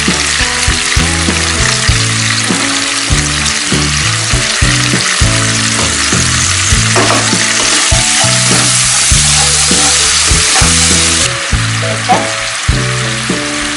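A sweet sauce of palm sugar and tamarind water with sliced shallots and garlic sizzling and bubbling in a wok, with background music. The sizzle drops off somewhat near the end.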